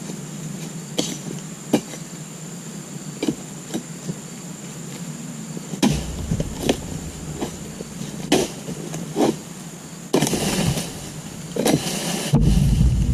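A long-handled axe chopping into the fibrous frond bases on an oil palm trunk, about a dozen sharp blows at roughly one a second. About ten seconds in there is a longer rustling noise, and a low rumble starts near the end.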